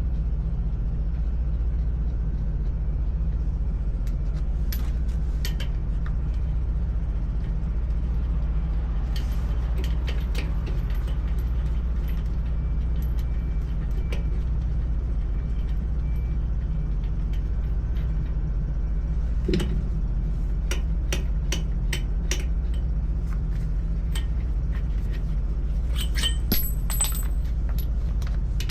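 Steady low engine hum with scattered sharp metallic clinks and clicks of tools and parts being handled during a truck tyre change.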